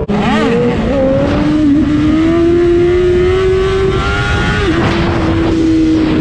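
Sport motorcycle engine heard from on the bike, pulling hard under throttle with wind rushing over the microphone. The engine note swings up and down just after the start, then climbs steadily and dips briefly for a gear change about three-quarters through before pulling again.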